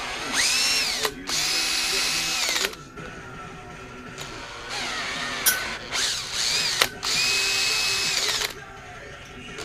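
Power drill boring holes through thin metal panels, run in several bursts. Its motor whine rises as it spins up, then holds steady while it cuts through. The holes are to be tapped for screws.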